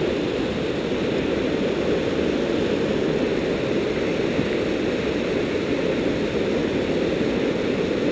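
Creek running high through whitewater rapids, a steady rushing of water that does not change.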